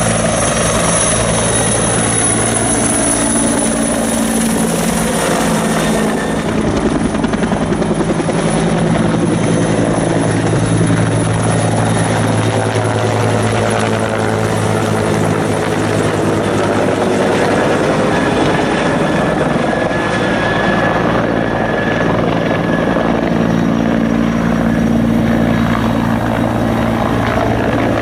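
Firefighting helicopter with a slung water bucket, its rotor and turbine engine running loud and steady close by. The tone sweeps slowly in the middle as the helicopter moves.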